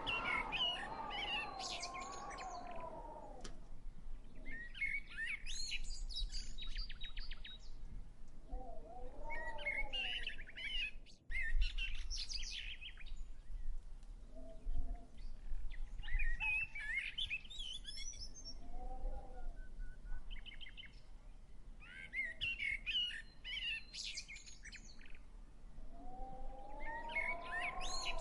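Songbirds singing in short bursts of chirps and trills every few seconds, with a lower, drawn-out call that rises and falls at the start and again near the end.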